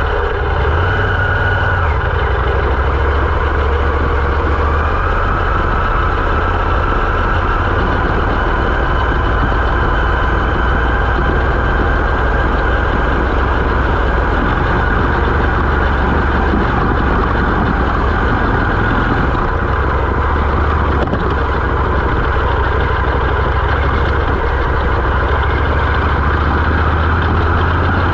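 Moto Morini X-Cape 650's parallel-twin engine running as the motorcycle is ridden along an unpaved road, its note shifting a little now and then with the throttle, under a steady hiss.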